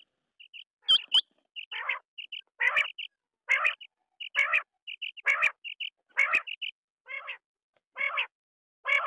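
Quail calling in a regular series of short, harsh, rasping notes, roughly one a second, with brief higher notes between them; a sharp, high call comes about a second in.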